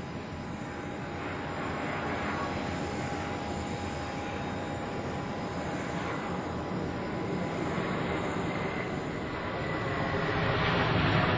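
Airbus A350's Rolls-Royce Trent XWB jet engines during touchdown and landing roll: a steady jet rush with faint whining tones, growing louder near the end.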